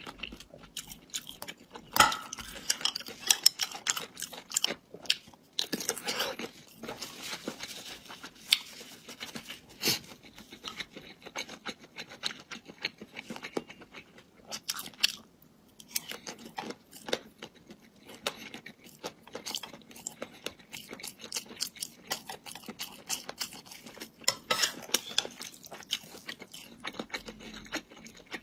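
Close-miked chewing and crunching of food: a dense run of irregular crisp crunches and mouth sounds, with a few louder bites scattered through.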